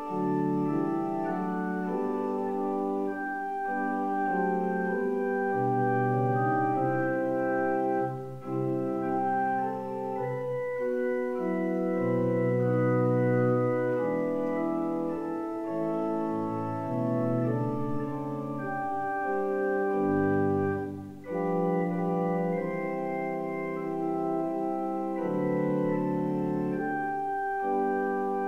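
Two-manual electronic church organ playing a slow piece in held chords over a moving bass line, with short breaks between phrases about 8 and 21 seconds in.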